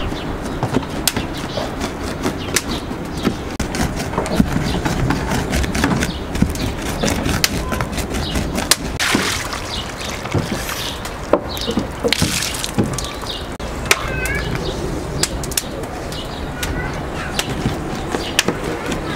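A large curved chopping blade striking a wooden board as meat and onion are minced, in irregular sharp knocks. Water runs from a tap into a plastic bowl for a moment around 9 and 12 seconds, and birds chirp briefly.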